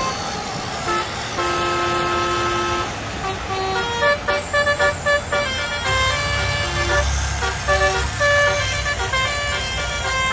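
Battery-powered toy diesel train running on plastic track, its built-in speaker playing electronic horn toots and a beeping tune in short held notes. A low motor and wheel rumble grows louder about six seconds in as the locomotive passes close.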